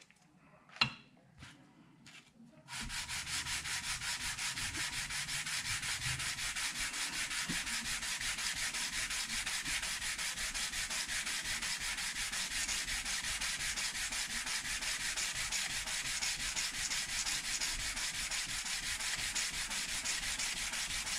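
Aluminium Ducati oil pump housing being lapped by hand, rubbed rapidly back and forth on an abrasive-covered flat steel plate in quick, even strokes to flatten its face and remove machining marks. It starts with a single knock, and the steady scraping rubbing begins just under three seconds in.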